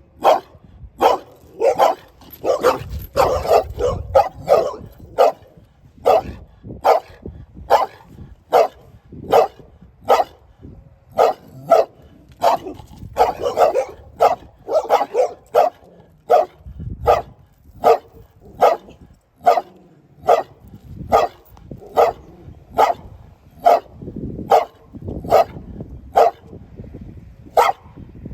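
A dog barking over and over in short, sharp barks, roughly two a second, with faster flurries of barks a few seconds in and again around the middle.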